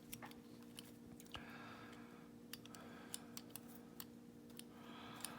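Faint scattered clicks and light scraping of a lock-picking tool moving inside a 5-lever padlock, over a steady low hum.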